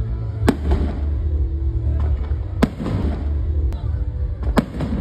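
Fireworks bursting: four sharp bangs spread unevenly across a few seconds, each trailed by a short echo. Background music with a steady low bass runs underneath.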